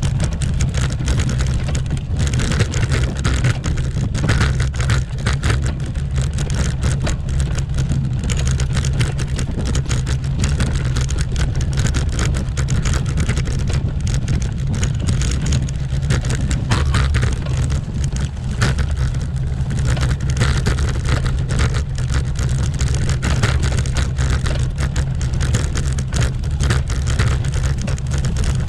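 Road bicycle rattling and juddering over cobblestones: a constant low rumble with fast, unbroken rattling.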